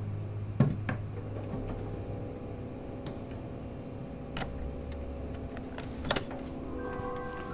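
Metal latches of a toolbox being handled and unfastened: a sharp click about half a second in with a second soon after, another single click about four seconds in, and two quick clicks near six seconds. A faint steady low drone runs underneath.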